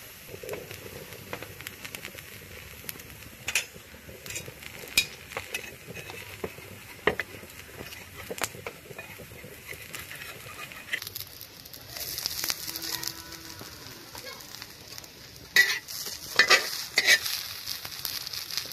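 A thin rice-flour crepe sizzles on a hot iron tawa while a steel spoon and a metal spatula scrape and tap against the pan, spreading the kheer filling and rolling the crepe. A few sharp, loud scrapes come near the end.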